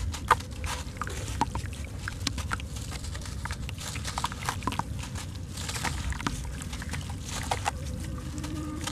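A soaked sand-cement lump crumbling in the hands, with a steady run of small gritty crunches and crackles as it breaks apart. Wet grit and crumbs drop and splash back into sandy water, over a low steady rumble.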